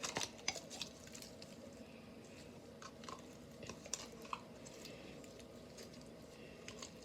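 Faint squishing and crackling of homemade slime being pulled out of its container and handled, with scattered small clicks.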